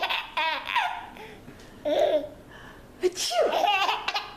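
A child laughing in repeated high-pitched bursts at someone's sneezes. A short sharp sound about three seconds in sets off another long fit of laughter.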